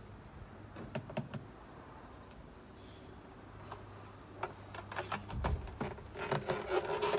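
Light clicks and knocks of plastic table-mounting brackets and a camper table top being handled against a van's carpeted rear door. There is a low thump about five and a half seconds in and louder handling noise near the end.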